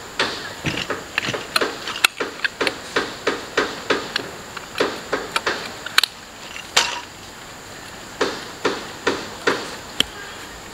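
A steady run of sharp knocks, about three a second, breaking off for about a second roughly seven seconds in and then resuming.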